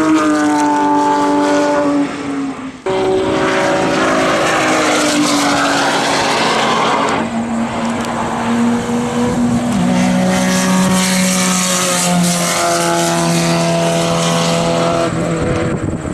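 Track cars at speed passing along a race circuit straight, their engine notes falling in pitch as they go by. The sound drops out briefly about three seconds in, and a lower engine note takes over near ten seconds.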